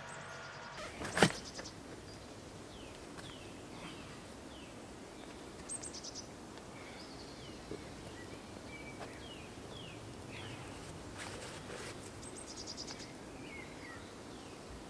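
Forest ambience with small songbirds chirping: repeated short falling calls and a couple of brief high trills. A single sharp knock about a second in is the loudest sound.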